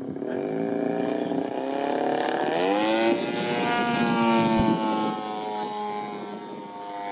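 Engine of a one-third-scale radio-controlled Cessna 182 Skylane model flying overhead: a steady buzzing note whose pitch climbs about two seconds in, peaks in loudness mid-way, then slowly slides lower.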